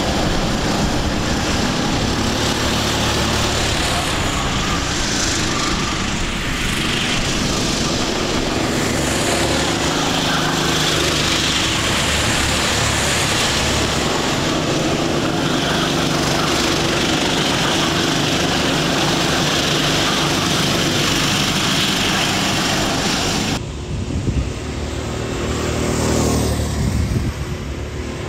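Sodi racing karts' engines running hard together around the track, a steady overlapping engine drone. Near the end the sound changes abruptly to a single kart's engine approaching on its own.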